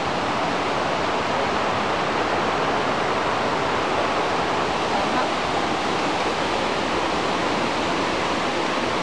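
Steady rush of flowing water, an even unbroken roar.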